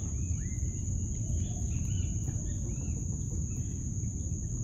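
Insects trilling steadily on one high pitch, with a few short chirps over it and a low rumbling background.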